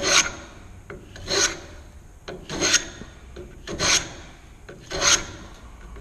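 Block plane jointing the edge of a board held in a bench vise, down to a marked line: five strokes about one every 1.2 seconds, each a short hiss of the blade taking a shaving.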